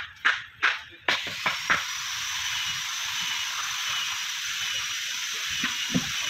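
Several sharp knocks, as of hammer blows on the wooden boat's planks, in the first two seconds. About a second in, a steady loud hiss with a thin high whistle in it starts suddenly and carries on, with a couple of low thumps near the end.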